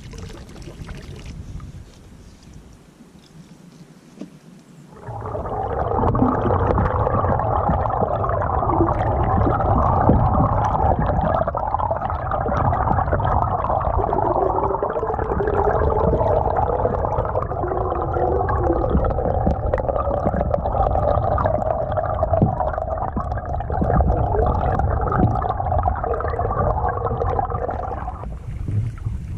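Water rushing and gurgling as heard by a camera held underwater beside a moving canoe: a muffled, steady, dense noise that starts suddenly about five seconds in and stops shortly before the end.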